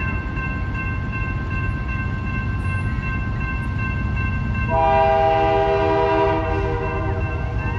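Railroad crossing warning bell ringing steadily as the gate arms lower, then a locomotive air horn sounds one long chord about five seconds in, lasting about two and a half seconds, as the train approaches the crossing.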